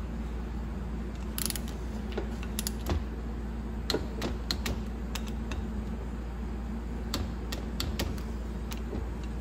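Light, irregular metallic clicks from hand tools working the bolts of an E4OD/4R100 transmission pump as they are tightened down, over a steady low hum.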